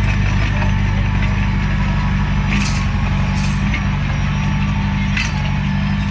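Bulldozer's diesel engine running steadily under load, with three short hisses about a third, half and most of the way through.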